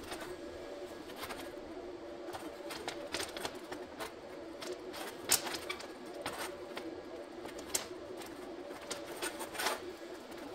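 Light clinks and taps of a thin sheet-steel strip being bent and fitted around a round steel disc on a steel bench, scattered irregularly, the sharpest about five seconds in, over a steady low drone.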